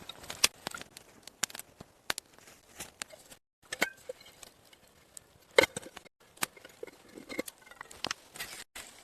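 Irregular sharp clicks and knocks, some louder than others, with the sound cutting out briefly a few times.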